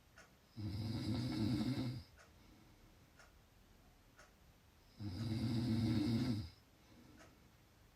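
A person snoring: two long, low snores about four and a half seconds apart, each lasting about a second and a half, with quiet between them.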